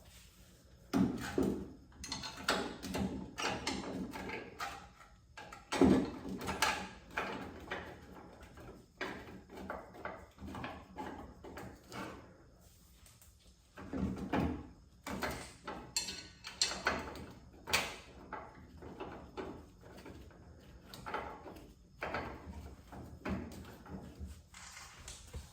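Hand work on car door-hinge hardware: irregular knocks, clicks and rustling as the metal parts are handled, with sharper knocks about a second in, about six seconds in, and a cluster between about 14 and 18 seconds.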